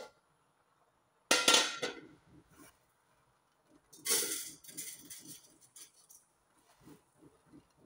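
Dry fine vermicelli rustling as a hand rubs and tosses it in a glazed clay dish, with two sharp clinks against the dish, about a second in and about four seconds in, each followed by quick, rhythmic rubbing strokes.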